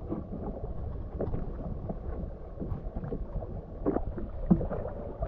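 Sea water lapping and sloshing against the hull of a Sea-Doo Fish Pro jet ski, with a few short slaps of water, the sharpest about four seconds in.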